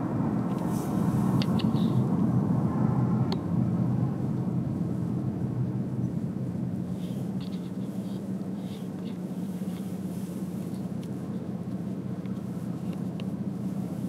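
Car moving along a road: a steady low rumble of engine and tyre noise, louder in the first few seconds and easing off after, with a few faint ticks near the start.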